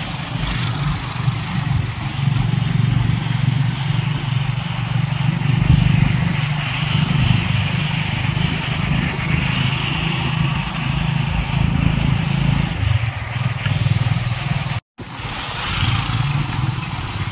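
Ride in a motorbike-drawn tuk-tuk: the motorcycle engine runs steadily, with road noise, wind and passing motorbike traffic. The sound cuts out for a split second about fifteen seconds in.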